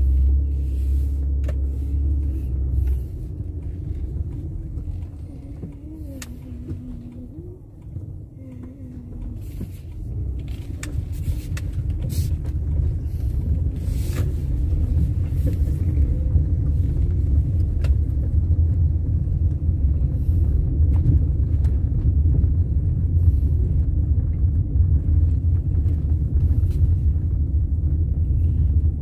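Low rumble of a car being driven slowly, with engine and road noise. It dips about eight seconds in, then builds and holds steady as the car picks up speed, with scattered light clicks.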